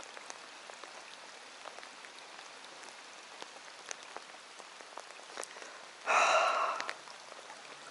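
Rain falling on a lake's surface: a steady soft hiss dotted with scattered raindrop ticks. A short, louder rush of noise breaks in about six seconds in, lasting under a second.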